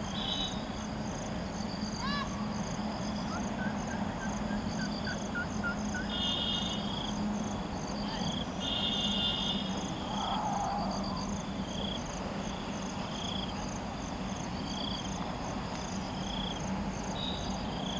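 Insects chirping in a fast, steady pulse, with short bird calls now and then, over a low steady hum.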